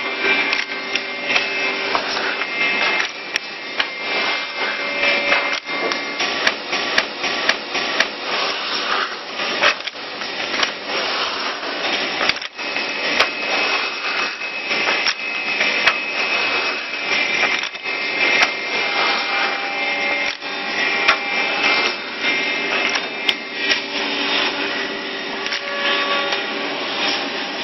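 SSZ 121 three-angle (triangle) wood boring machine running: its electric drill motors whine steadily as the bits bore holes into wood, with frequent short clicks and knocks.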